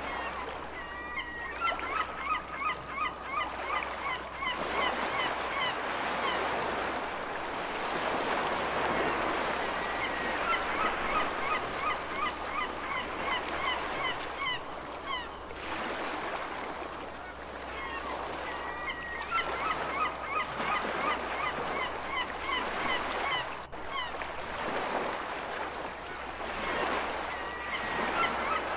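Seagulls calling in quick series of short yelping notes, in several bouts, over the wash of ocean waves that swells and fades every few seconds.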